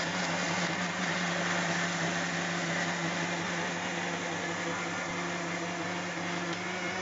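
Electric mixer grinder (mixie) motor running at a steady speed, its stainless-steel jar blending banana, milk and ice cream into a milkshake: an even motor hum under a whirring, rushing noise.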